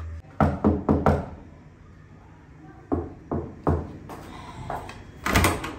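Knocking on a door: four quick knocks, a pause, then three more knocks, followed by a louder, sharp clatter near the end.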